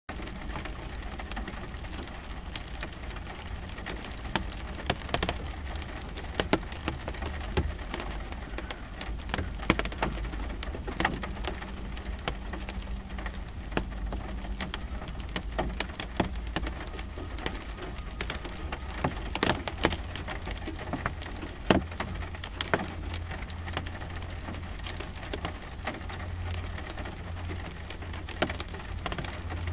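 Light rain falling on a car windshield: a steady hiss with many irregular single drop taps, some louder than others, over a steady low hum.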